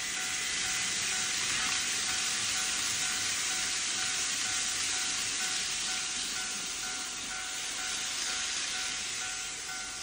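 Electronic warning sound of a KATO automatic model level crossing repeating steadily while its lights flash, over the running hiss of a model freight train passing on the track; the hiss eases as the train clears.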